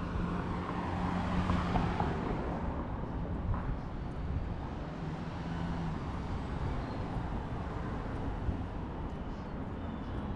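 Downtown street traffic: a vehicle passes close by, its sound swelling in the first two or three seconds, over a steady background of road noise with a low engine hum coming and going.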